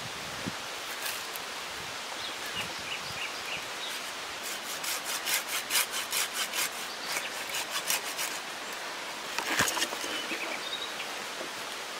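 Folding pruning saw cutting through a dead tree branch: a run of quick rasping strokes, about three or four a second, starting some four seconds in and stopping a little after eight. Shortly after comes a single sharp crack as the branch breaks.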